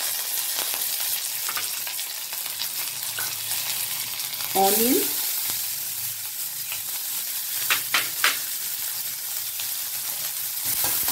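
Fennel seeds and curry leaves sizzling steadily in hot oil in a steel kadai, with chopped onion added partway through. Three sharp knocks sound about two-thirds of the way in.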